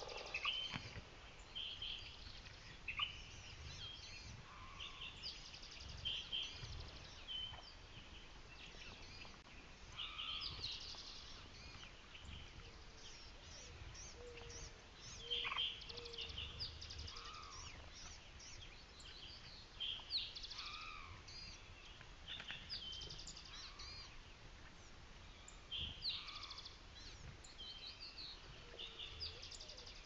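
A mixed morning bird chorus. Many short high chirps, trills and calls overlap throughout, with a few lower slurred whistles now and then.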